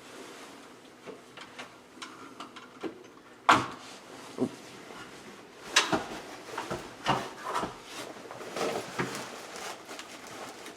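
Smoke detector wiring and mounting bracket being handled: scattered clicks, knocks and rubbing, with the sharpest knock about three and a half seconds in.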